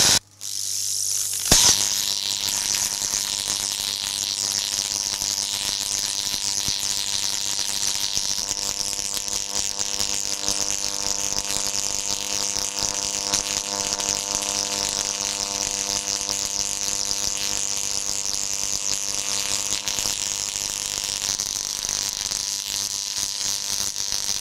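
High-voltage electric arc burning across a mobile phone between two insulator terminals. It strikes with a sharp crack about a second and a half in, then holds a steady electrical buzzing hum with a hiss on top.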